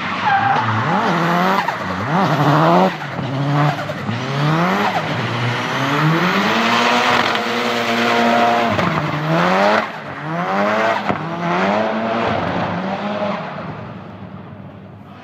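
Turbocharged 500+ hp Nissan 200SX engine revving hard, its pitch climbing and dropping again and again, with tyres squealing as the car drifts. The sound fades near the end.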